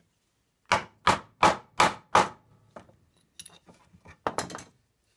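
Five sharp knocks in quick succession, about three a second, as a metal bolt is driven into a small wooden block, followed by a few lighter clicks and knocks as the block is handled on the bench.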